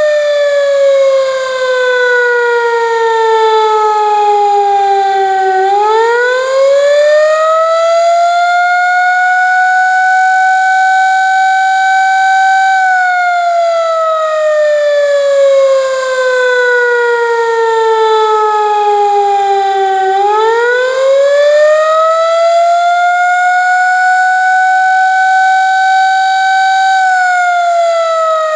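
Air raid siren sounding a wail. Its pitch slides slowly down for about five seconds, swings back up over a few seconds, holds high, then falls again, going through this cycle twice.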